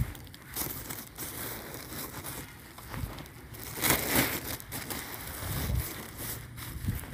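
Irregular crunching and rustling of footsteps through dry grass and straw, loudest about four seconds in.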